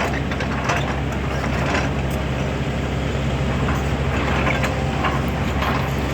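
Excavator's diesel engine running steadily, with short metallic clanks and knocks scattered over it.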